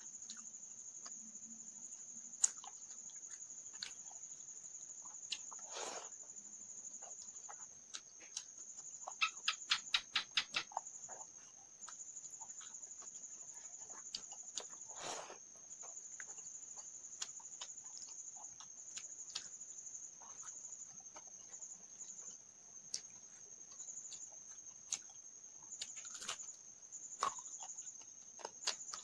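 Soft eating sounds of rice and fried fish eaten by hand, scattered mouth clicks and smacks, over a steady high-pitched cricket trill. About nine seconds in, a quick run of eight or so sharp clicks.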